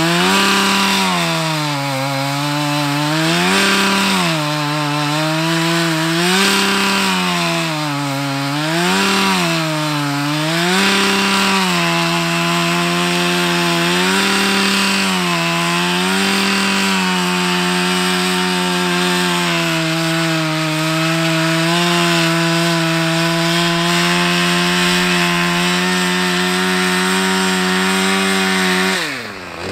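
Small two-stroke engine of a handheld garden power tool, revving up and down every couple of seconds, then held at steady high revs, dropping away briefly near the end.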